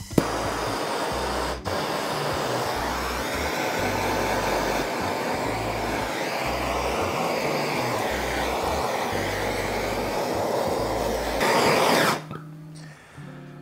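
Handheld gas blowtorch clicking alight, then a steady hissing flame with a brief break about a second and a half in, cutting off sharply near the end. It is browning the shredded cheese on the curry fries.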